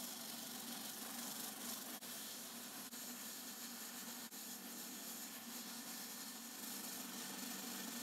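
Electric disc game-plucking machine running with a steady hiss as a bird's feathers are stripped against its spinning head, with three brief dips in the noise in the first half.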